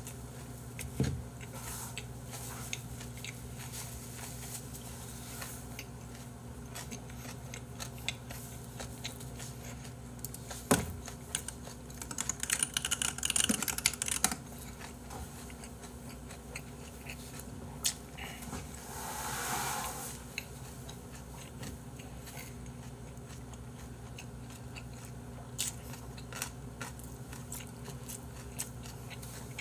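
Close-up mouth sounds of a person chewing a big mouthful of bossam, with scattered wet clicks. A run of rapid crackling comes about twelve seconds in, and a breathy hiss about a second and a half long comes near twenty seconds.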